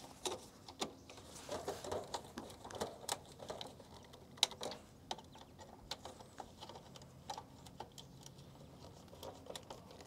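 Screwdriver tightening the line-wire lug screws on a contactor by hand: faint, irregular small clicks and scrapes as the tip turns in the screw heads.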